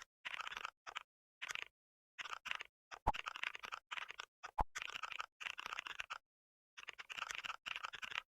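Typing sound effect: runs of rapid keyboard clicks in short bursts separated by dead silence, with a couple of sharper single clicks in the middle.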